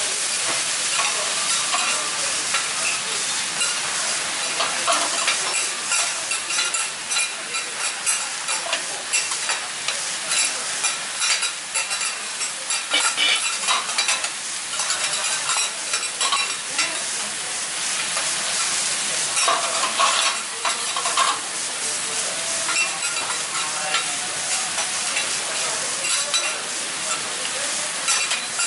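Noodles frying on a hot teppan griddle for Hiroshima-style okonomiyaki: a steady sizzle full of fine crackling. Metal spatulas scrape and clink on the griddle now and then.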